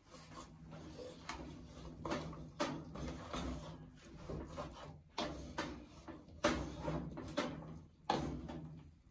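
Wooden spatula stirring chopped greens in a large aluminium pot, with irregular scrapes and knocks against the pot every second or so, over a low steady hum.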